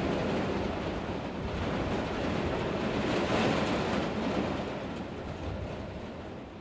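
A rushing wash of noise like surf or wind, swelling about three seconds in and then fading away.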